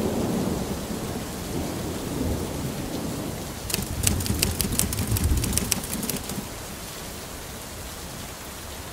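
Steady rain with rolling thunder rumbling underneath. About four seconds in, a quick run of typewriter key clacks lasts about two seconds.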